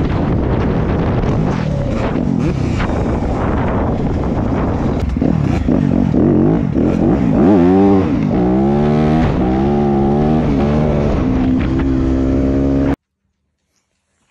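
Dirt bike engine under way, at first a rough noisy rumble, then revving up and down in repeated rising and falling sweeps. The sound cuts off suddenly about thirteen seconds in.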